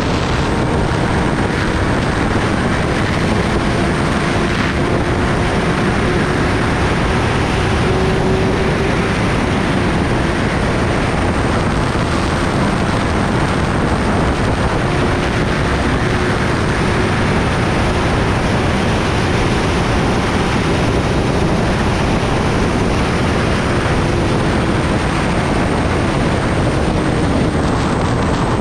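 Loud, steady wind noise over the camera microphone at highway speed, with the Kawasaki Ninja ZX-10R's inline-four engine holding a steady note underneath.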